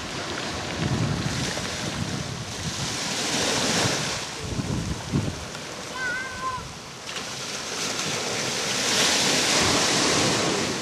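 Small waves washing onto a shingle beach, the surf swelling twice as waves break, with wind buffeting the microphone.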